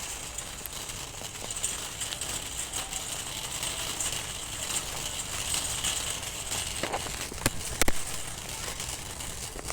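Steady background hiss of a large room, with a few sharp clicks about seven to eight seconds in.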